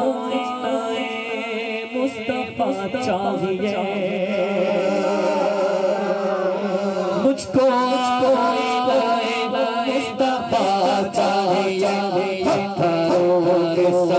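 Male voice singing an Urdu naat (devotional song in praise of the Prophet) through a microphone and PA, over a steady held drone. From about halfway through, a regular beat of sharp strikes joins in.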